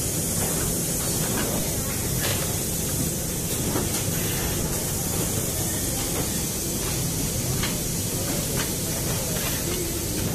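Steady machine noise from a semi-automatic film laminator and its workshop: a constant air hiss over a low hum, with faint clicks now and then.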